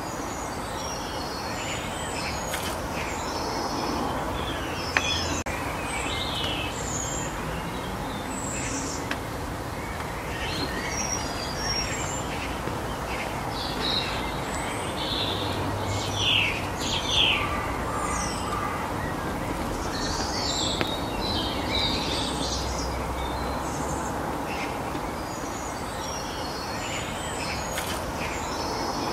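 Small songbirds chirping in short, scattered calls, busiest about halfway through, over a steady outdoor background noise.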